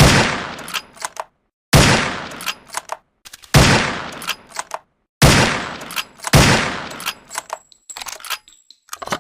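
SRP rifle sound effect: five shots, each with a long fading tail and followed by a couple of short mechanical clicks, then a run of quicker clicks near the end.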